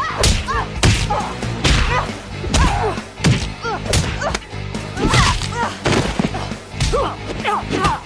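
Cartoon fight sound effects: a rapid string of whooshes from swung blows and sharp punch and hit impacts, with short grunts between them, over background music.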